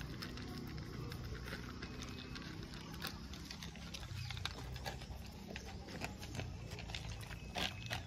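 Dogs eating dry kibble from plastic bowls: irregular crunching and small clicks, with a sharper knock near the end.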